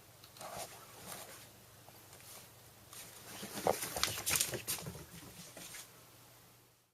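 Rustling and scuffling with irregular soft knocks, busiest from about three and a half to five seconds in.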